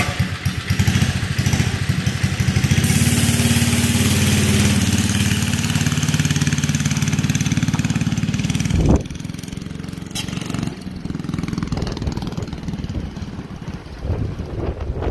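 Doodle Bug motor scooter's small single-cylinder engine running and revving as the newly built scooter pulls away on its first test ride. Just before nine seconds in it drops away sharply and carries on fainter as the scooter rides off into the distance.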